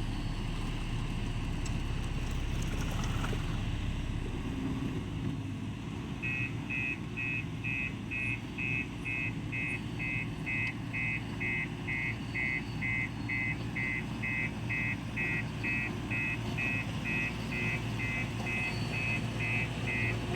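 Heavy diesel construction machinery running steadily. About six seconds in a reversing alarm starts beeping at a steady high pitch, about two and a half beeps a second: a truck or machine backing up.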